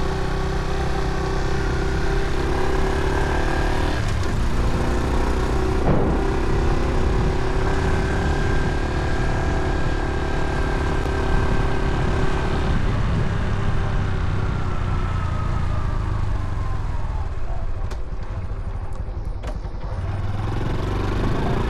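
Small motorcycle engine running steadily at riding speed, with a low rumble of wind on the microphone. About two-thirds of the way in the engine note falls away as the bike slows, then rises again near the end as it speeds up.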